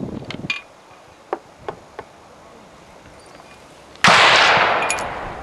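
Snider-Enfield Mk III short rifle firing one .577 Snider ball cartridge about four seconds in: a single loud shot with a long fading tail. Before it, a few light clicks from handling the rifle.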